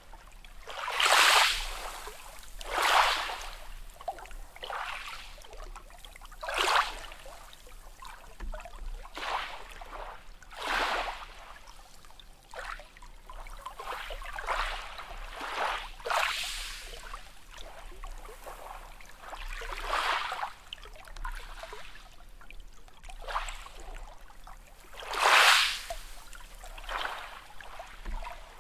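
Small sea waves lapping and splashing in irregular swells a second or few apart, with a steady wash of water between them.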